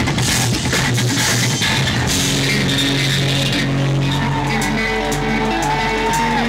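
Instrumental progressive metal band playing live: extended-range electric guitars over a drum kit. Busy cymbal and drum hits fill the first two seconds, then thin out under sustained guitar chords and bass notes. A lead note bends up and back down near the end.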